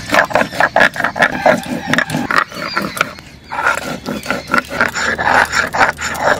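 A stone grinding muller rocked back and forth on a flat stone slab (shil-nora), grinding dried red chillies and cumin into a wet paste. It makes a rasping scrape in quick strokes, a few a second, with a short break about three seconds in.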